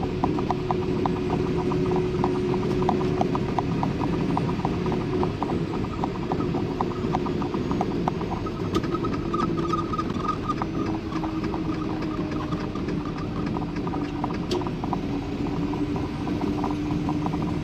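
Steady road and engine drone inside a moving vehicle, its engine note slowly dropping in pitch, with rapid light ticking or rattling over it.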